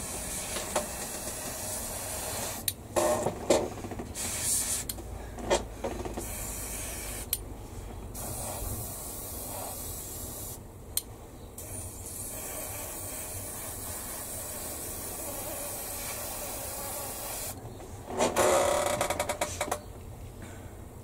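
Airbrush spraying paint with a steady hiss that stops briefly several times, over a low steady hum. There is a louder burst near the end.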